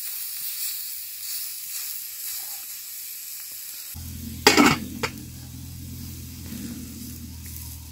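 Marinated steaks sizzling steadily on a hot marble slab over a wood fire. About halfway through, a low hum comes in under the sizzle, and two sharp clacks follow about half a second apart; the first clack is the loudest sound.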